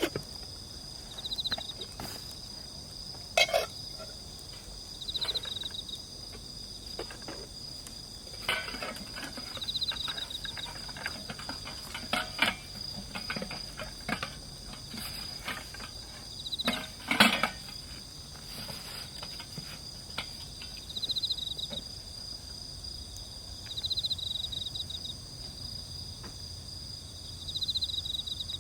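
Insects, crickets among them, calling steadily in a high-pitched chorus, with a short pulsing chirp repeated every two to four seconds. A few sharp cracks and knocks stand out over it, the loudest about two-thirds of the way in.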